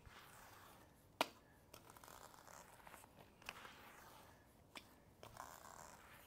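Faint scraping and smearing of a rubber grout float spreading cement grout into the joints of mosaic wall tiles, with a sharp click about a second in and a couple of lighter ticks later.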